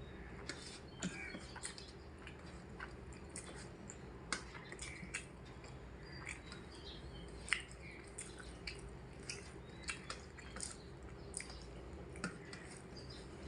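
Close-miked mouth sounds of eating: chewing with frequent short, wet lip smacks and clicks, irregular and several a second.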